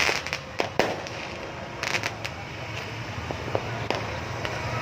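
Fireworks going off: a string of sharp bangs and pops at irregular intervals, several within the first second and another cluster about two seconds in, over a steady background rumble.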